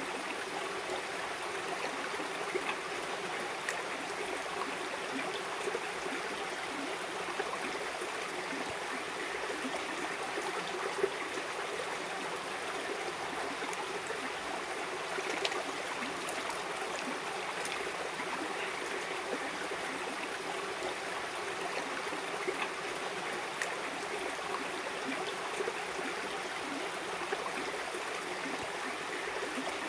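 Steady rushing and burbling of a flowing river, with a few faint clicks scattered through it.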